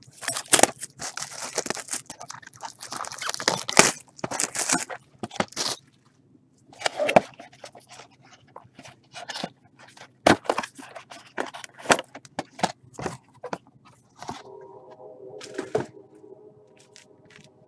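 A Topps Finest Baseball hobby box being opened and unpacked by gloved hands: irregular crackling of plastic wrapping, cardboard scraping and knocking, and mini-boxes set down on the table. About three seconds before the end a steady low hum comes in.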